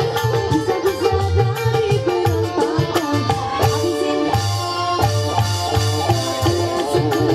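Live dangdut band music, an instrumental passage: a melody line over a steady rhythm of low hand-drum strokes.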